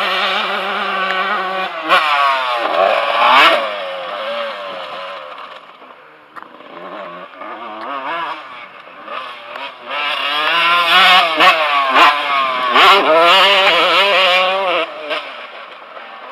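Motocross bike engine revving hard, its pitch climbing and dropping again and again as the rider works the throttle and gears. It is loudest about two seconds in and again from about ten to fifteen seconds, and fainter in between.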